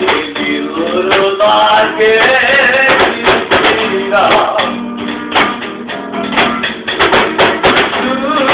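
Acoustic guitar strummed and played in a lively Roma style, with sharp strums every fraction of a second under the melody.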